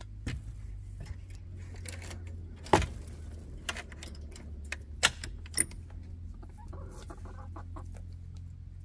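Backyard hens clucking around the camera, with several sharp taps; the loudest comes about three seconds in, and a couple more follow near the middle. A steady low rumble lies underneath.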